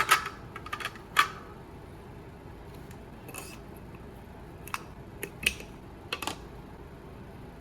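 Scattered light clicks and knocks of pond pump parts being handled during disassembly, the loudest at the very start and about a second in, the rest fainter and spread out.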